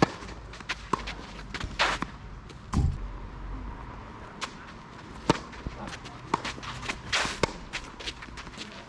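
Tennis ball being struck by rackets and bouncing on the court, a sharp knock about every second, with a few short scuffs of shoes on the court surface.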